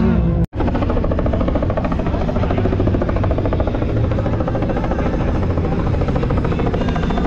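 Helicopter rotor chopping steadily overhead, a fast even beat of blade slaps. About half a second in the sound breaks off for an instant.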